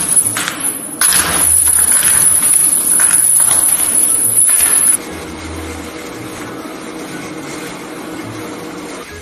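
Foley for rock climbing: a rope shaken and dragged through loose gravel, with irregular scraping, rattling clicks. About five seconds in it cuts to a quieter, steady hiss.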